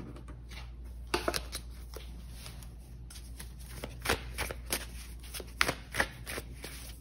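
A deck of oracle cards being shuffled and handled by hand: irregular card snaps and riffling rustles, starting about a second in.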